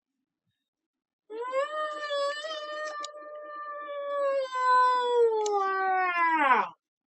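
A long, drawn-out wailing vocal call, held fairly steady in pitch for about five seconds, then sliding down and cutting off near the end.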